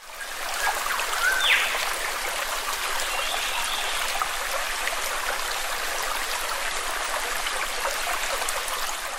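Steady sound of flowing water, with a short rising chirp about a second and a half in.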